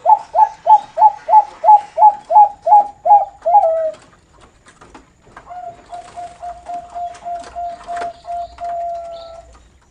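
Bangkok-type perkutut (zebra dove) calling in the 'noklak' style: a loud run of about eleven clipped notes, about three a second, then after a short pause a quieter, rapid string of notes held for about four seconds.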